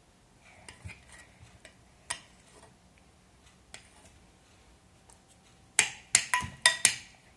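A utensil tapping and clinking against the bowl of slime being mixed: scattered light taps, then about five sharp clinks with a brief ring near the end.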